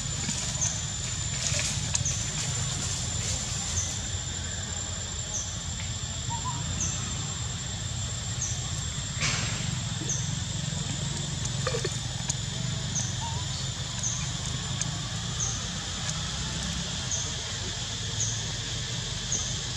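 Outdoor forest ambience: a steady high drone with a short high chirp repeating about every two-thirds of a second over a low rumble, and a brief sharper rustle about halfway through.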